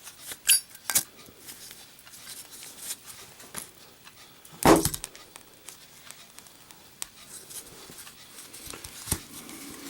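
A Zippo lighter, steel insert in a brass case, clicks open and is struck in the first second. It is then dropped while lit and lands with one loud thud just under five seconds in. A single sharp click comes near the end, with faint handling noise between.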